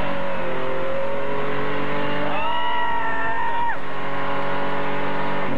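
Mud-run truck engines running. About two seconds in, one engine revs up sharply, holds high for about a second, then drops back, while a steadier engine tone carries on underneath.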